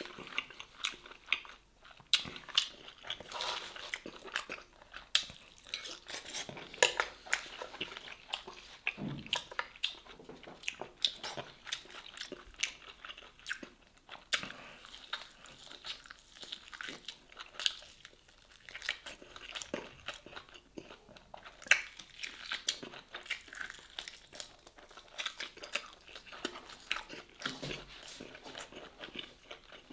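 Close-miked eating: chewing, biting and crunching of smoked beef short rib meat and green beans, heard as many short, irregular mouth clicks.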